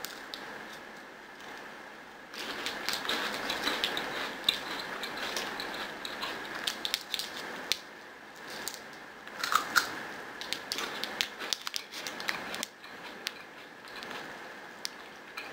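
Thin foil candy wrapper crinkling and crackling as it is peeled off a small chocolate wafer bar. Dense crisp crackles start about two seconds in and go lighter and sparser for the last few seconds.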